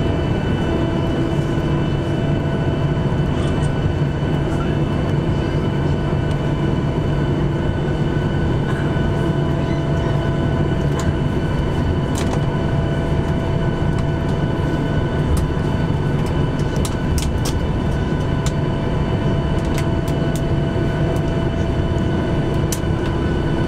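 Boeing 737-800 cabin noise while taxiing: the CFM56-7B engines hum steadily at idle, with several constant tones and a few faint scattered clicks.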